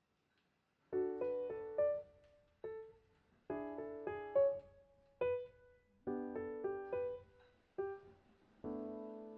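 Background piano music: soft chords and a simple melody of struck notes that ring and fade, starting about a second in.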